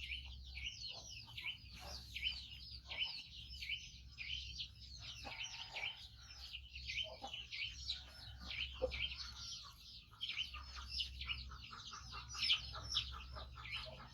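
A baby monkey calling loudly and without pause, in rapid high-pitched squeaks that slide downward, several a second: the calls of a hungry infant waiting to be fed.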